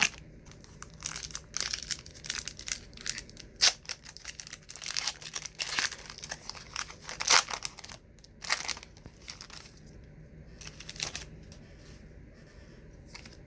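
A trading-card wax pack being torn open, its wrapper crinkling and crackling with a few sharper tears over the first eight seconds or so, then lighter rustling as the cards are handled.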